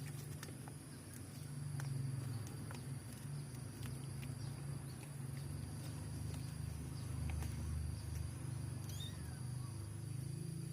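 Kitten sounds: a faint high mew about nine seconds in, over a low steady rumble and a few faint clicks.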